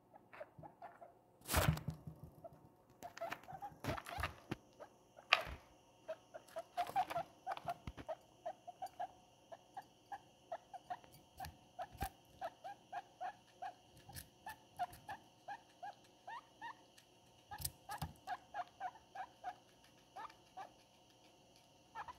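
Guinea pig chewing cucumber, a long run of small crunches at about two to three a second. A few louder knocks come in the first several seconds.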